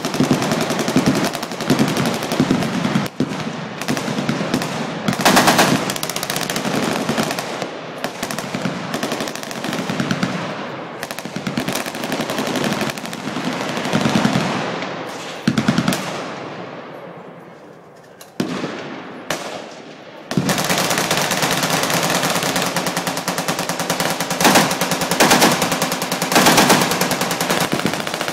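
Many machine guns firing at once from a firing line, a dense, continuous rattle of automatic fire. About two-thirds through it dies away to a brief lull, then picks up again in full.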